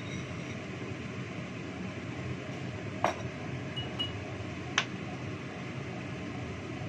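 Kitchenware clinking sharply twice, about three seconds and about five seconds in, over a steady rushing background of heavy rain and strong wind.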